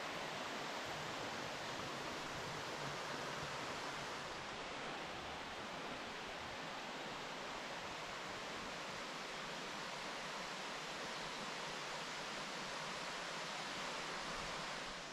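Creek water rushing steadily, an even hiss with no breaks.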